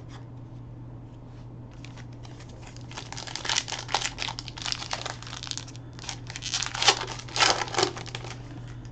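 Foil wrapper of a trading-card pack crinkling as it is torn open and the cards slid out: a run of crackling rustles starting about three seconds in, loudest near the end.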